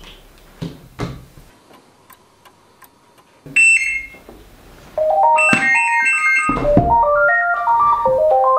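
Cordless phone handset ringing with an electronic melody ringtone of quick stepped notes, starting about five seconds in, after a single loud electronic beep about three and a half seconds in. Two clicks in the first second.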